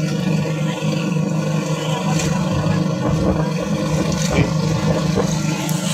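Outrigger boat's engine running steadily under way, with water splashing along the hull.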